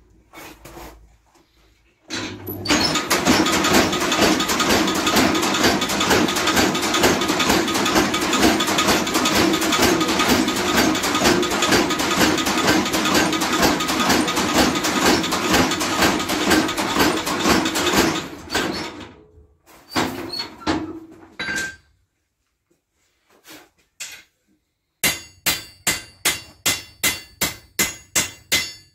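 Belt-driven mechanical power hammer pounding a red-hot steel knife blade in rapid, continuous blows for about sixteen seconds, then stopping. Near the end a hand hammer strikes the blade on the anvil about three times a second, each blow ringing.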